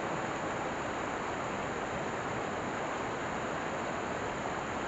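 Steady rushing of a fast stream's white water over rocks.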